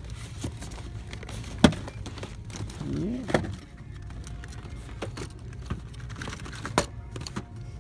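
Store ambience: a steady low hum with three sharp clicks or knocks, about two seconds in, at three and a half seconds and near the end, as toy packages are handled on the shelves.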